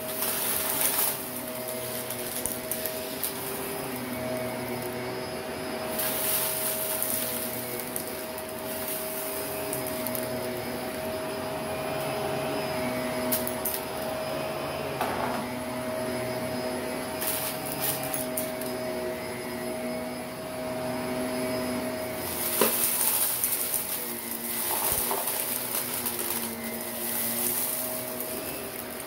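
Shark Navigator upright vacuum running with its brush roll on carpet, a steady motor hum and whine. The fine, crunchy dirt it picks up crackles through it in bursts, with a few sharp clicks from bits of grit, strongest about six seconds in and again in the last few seconds.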